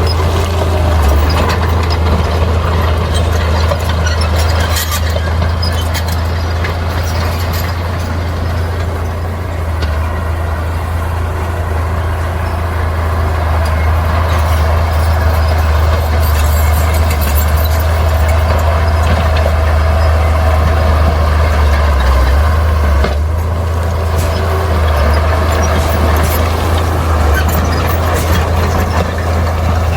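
Bulldozer's diesel engine running steadily under load with a deep drone, with scattered high metallic squeaks and clanks from the tracks and blade.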